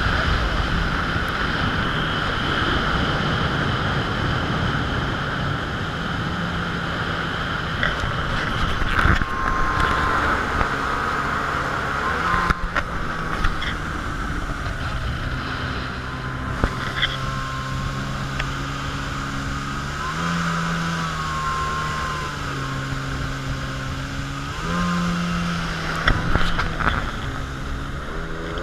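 Jet ski engine running under way, its pitch stepping up and down as the throttle changes, over steady wind and water noise, with a few sharp slaps now and then.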